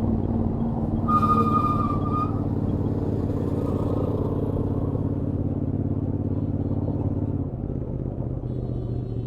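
Royal Enfield Interceptor 650's stock parallel-twin engine running at a steady highway cruise, heard from the rider's helmet. A short high tone sounds about a second in, and the engine note drops and quietens about seven and a half seconds in as the throttle eases.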